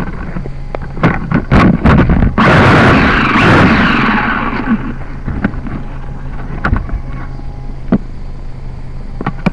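Handling knocks, then a loud rasping rustle of the camera being moved close against the dirt, fading after about two seconds, over a steady low hum.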